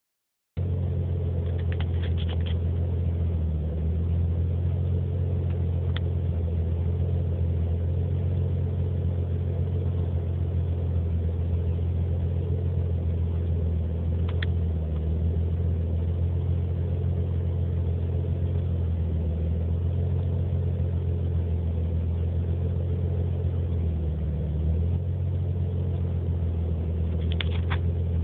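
Nissan 300ZX's V6 idling roughly: a steady low rumble that wavers and briefly sags every few seconds. Specialists told the owner the engine runs very lean, and the cause of the rough idle is still unfound.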